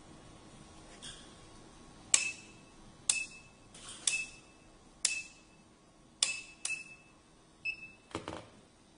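Sharp plastic clicks about once a second from a dental LED lamp head being turned and adjusted by hand, most of them followed by a short high ping, with a heavier clunk near the end.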